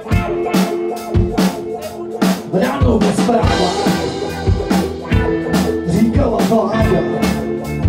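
Live rock band playing an instrumental passage: distorted electric guitars over a drum kit keeping a steady beat, with a cymbal wash swelling about three seconds in.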